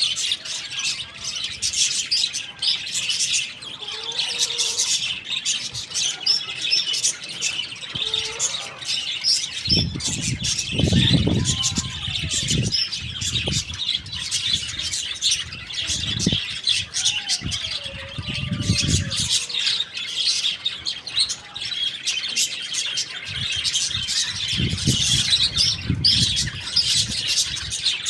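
Birds chirping densely and continuously, with a few lower, drawn-out calls that glide up and down. There are several low rumbles in between.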